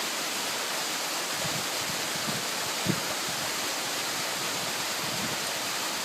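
Waterfall rushing in a steady, even roar of falling water, with a brief low knock about three seconds in.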